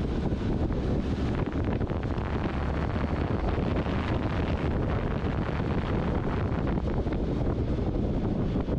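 Steady wind noise buffeting the microphone of a moving motorcycle, with the motorcycle's engine and tyre noise running underneath.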